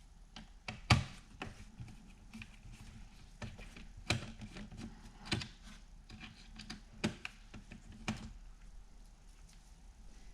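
Small irregular clicks and taps from a Phillips screwdriver turning out a screw in the laptop's plastic underside and from handling small parts, with about half a dozen louder clicks spread through.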